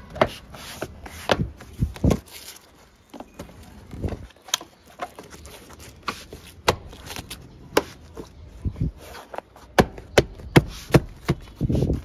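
Plastic door sill trim panel of a Toyota Innova being pressed and knocked into its clips by hand: a string of sharp, irregular clicks and taps. Near the end, a rubber floor mat rustles as it is moved.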